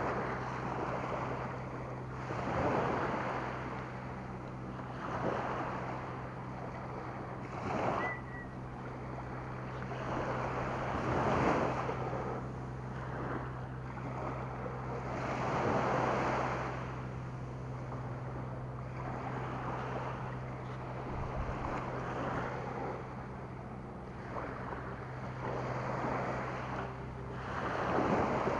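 Small waves washing up on a sandy shore, the sound swelling and fading every few seconds, with some wind on the microphone and a steady low hum underneath.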